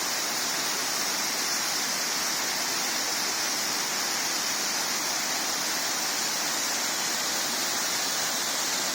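Waterfall rushing steadily: a continuous, even hiss of falling water over karst rock.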